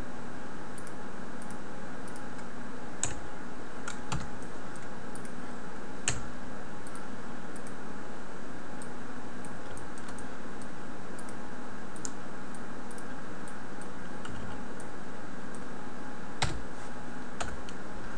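Computer keyboard and mouse clicks: scattered light ticks with a few sharper clicks, over a steady background hum and hiss.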